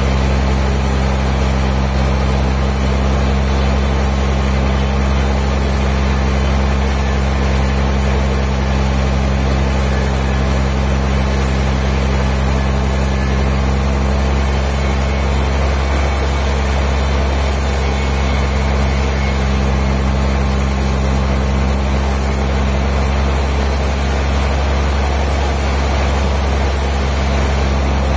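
A heavy engine running steadily at a constant speed, with no change in pitch or level.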